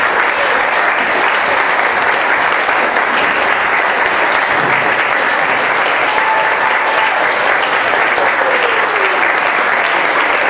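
Audience applauding steadily as the performers enter and bow.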